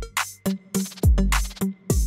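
Electronic music with a drum-machine beat: deep bass kicks that slide down in pitch, alternating with sharp hits.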